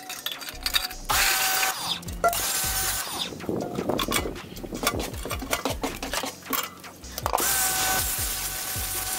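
Dedra 1900W electric pressure washer spraying in bursts as the trigger is pulled: a steady motor-pump whine under the hiss of the water jet striking a metal grill bowl and lid. It sprays briefly twice, then again steadily from about seven seconds in. In between come scattered clicks and knocks.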